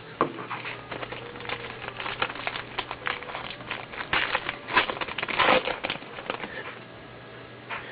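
A trading-card pack's wrapper being torn open and crinkled in the hands, with a run of irregular crackles and clicks that dies down about six and a half seconds in.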